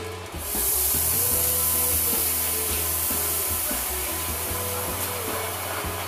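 V 60 diesel shunting locomotive running as it pulls a train slowly past, with a loud steady hiss that comes in about half a second in.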